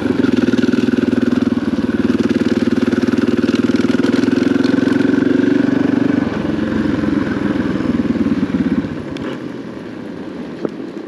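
KTM dirt bike engine running at a low, steady throttle with a fast pulsing note. The note eases about six seconds in and falls away much quieter about nine seconds in, as the throttle closes.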